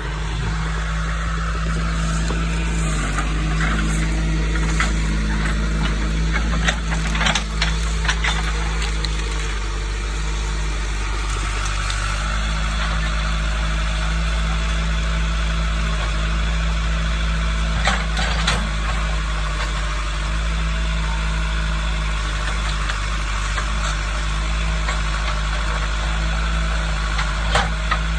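Diesel engine of heavy land-clearing equipment running steadily, with several sharp knocks or cracks early on, another about midway and one near the end.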